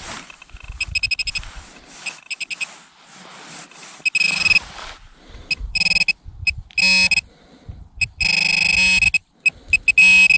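Handheld metal-detecting pinpointer sounding as it is pushed into loose soil in search of a target: short bursts of rapid beeps, then longer unbroken buzzes about halfway through and again near the end as it comes close to the find.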